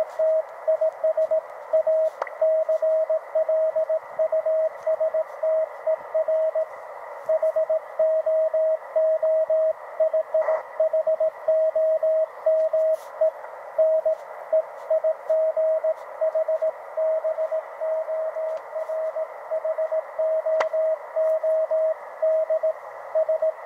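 Morse code (CW) signal received on a YouKits HB-1B QRP transceiver: a single steady mid-pitched beep keyed on and off in dots and dashes, over a constant hiss of band noise.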